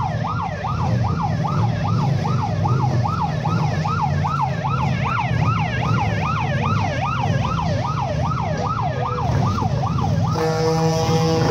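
Electronic yelp siren on a sheriff-style Lincoln Town Car, a fast rising-and-falling wail about three times a second, over the low rumble of motorcycle engines. About ten seconds in the siren stops and music starts.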